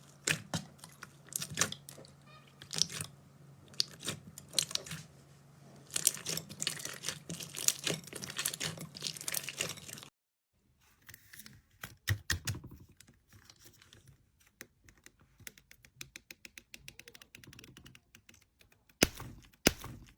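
Slime being squeezed, poked and stretched by hand, giving crackling, popping and clicking sounds. The first half has a faint low hum underneath. After a sudden cut about halfway through, a second clip brings rapid runs of small clicks and pops.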